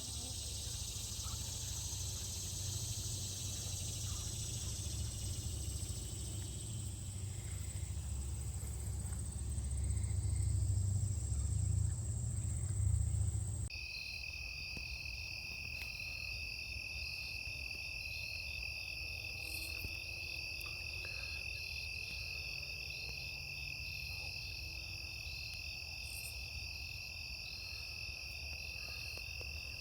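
Late-summer insect chorus in a garden: cricket-like trilling at a steady high pitch, with a faster pulsing trill above it. For the first half a low rumble sits under a high hiss, until an abrupt change about 14 seconds in leaves the trilling clear.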